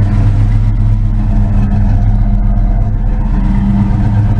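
1988 Ford Mustang GT's 5.0 V8 idling steadily, its note even and without surging now that the wiring faults behind its surging have been fixed.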